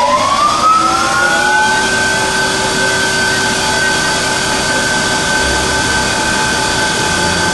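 Electronic variable-speed lathe spindle motor, fed by an AC frequency drive, speeding up: a whine that rises in pitch for about a second and a half, then levels off into a steady high whine as the spindle holds its new speed.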